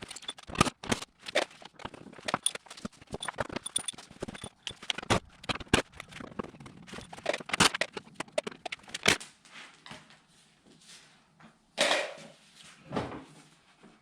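A car's plastic front bumper being worked off by hand: a rapid, irregular run of plastic clicks, knocks and rattles for about nine seconds, then quieter handling, with two louder clatters near the end.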